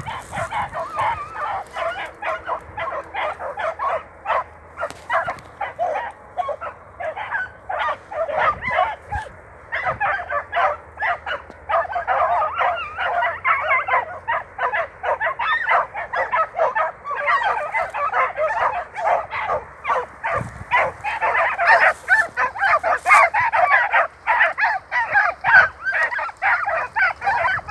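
A dense, unbroken chorus of many overlapping animal calls, like a flock calling together; it grows louder over the second half.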